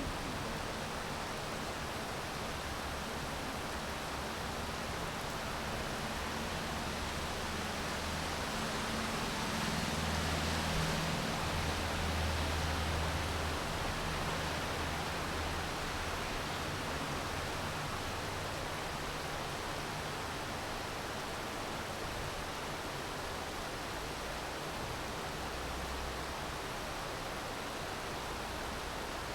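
Steady rain falling, an even hiss, with a low rumble that swells and fades about a third of the way through.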